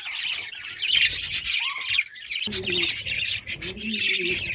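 Budgerigars chattering: a steady mass of high chirps and warbles.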